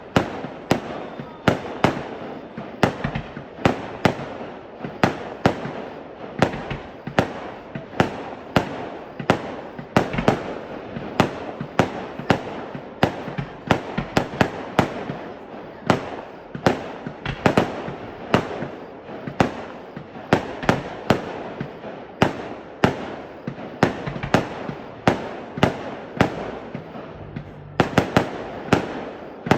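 Fireworks display: a rapid barrage of aerial shell bursts, about two bangs a second, each echoing, over continuous crackling.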